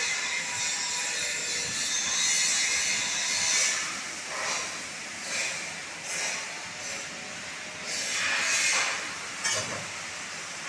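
CNC laser cutter cutting steel plate: a steady rushing hiss that swells and eases several times as the cutting head works through the design.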